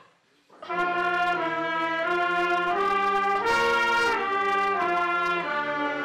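A small school wind band of flutes, saxophones and brass playing a tune together, coming in loudly about a second in with several held notes at a time that change every half second or so.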